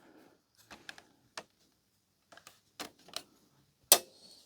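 Scattered small plastic clicks and taps, the loudest a little before the end, as plastic retaining clips are released and the disc tray assembly is worked loose from its housing.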